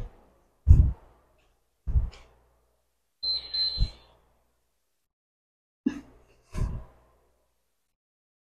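Footsteps of sneakers on a hardwood floor and exercise mat: a handful of dull thuds spaced about a second apart, with a short high squeak about three seconds in.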